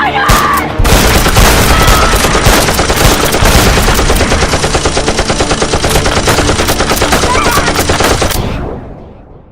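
Long, loud burst of rapid automatic machine-gun fire, fading out near the end.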